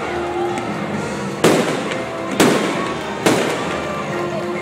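Aerial fireworks shells bursting: three sharp bangs about a second apart, each trailing off into a crackling decay, over background music.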